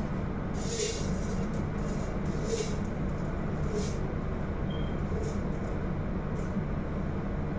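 Dry vermicelli being poured from a glass jar into a stockpot of oil, heard as a few short bursts of hiss over a steady low rumble.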